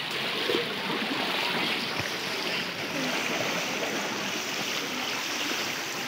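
Steady rushing of a waterfall and rocky stream, with faint scattered voices of people in the background.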